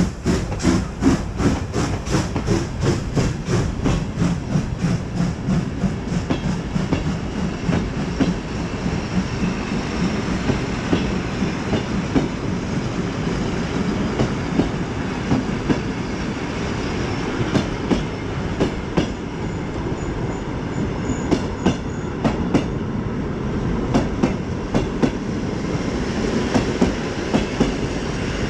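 Vintage passenger carriages rolling slowly past on the track, their wheels clacking over the rail joints. The clacks come in a quick even beat for the first few seconds, then in looser clusters.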